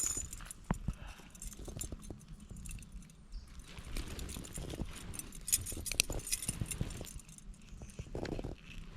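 Handling noise from people unhooking a bluegill: scattered light clicks and rustles over a low steady rumble.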